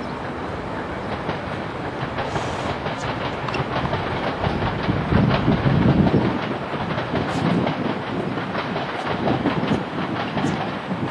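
Rumble and clatter of a passing train. It grows louder towards the middle, where the low rumble is strongest, then fades a little.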